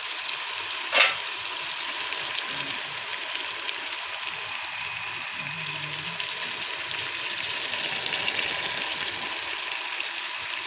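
Raw chicken pieces sizzling in a pot on top of sautéed ginger, garlic and onion: a steady crackling hiss. A single sharp knock about a second in.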